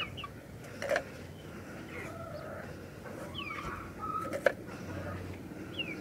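Desi hens clucking softly in their coop, with a few short high falling chirps. There are a couple of light knocks, about a second in and again around four and a half seconds.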